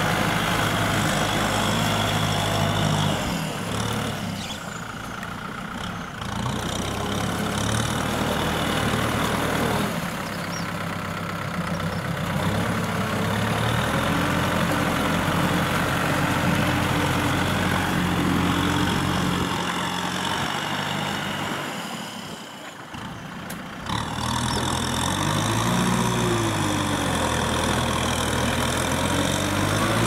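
Kubota M6040SU tractor's diesel engine running steadily while pulling a disc plough through wet paddy mud. Its note shifts up and down, grows quieter twice for a second or two, and near the end rises and falls once.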